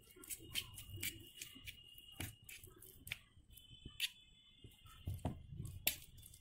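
Small spoon scraping and clicking against a miniature steel bowl while mixing a mashed vegetable mixture, in irregular sharp clicks.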